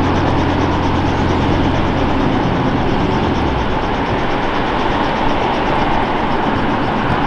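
Steady mechanical running noise with a low hum underneath; the hum drops out about three and a half seconds in, leaving the broader running noise.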